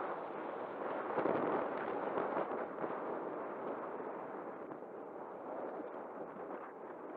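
Wind rushing and buffeting over the camera's microphone on a fast bicycle descent, a steady noise that swells about a second in.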